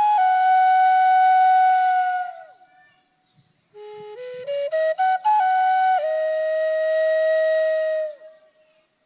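Solo flute-like wind instrument playing two rising phrases of quick stepped notes, each ending on a long held note, with a pause of about a second between them.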